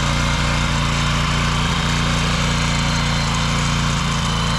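A small hand-guided machine's motor running steadily at an even pitch.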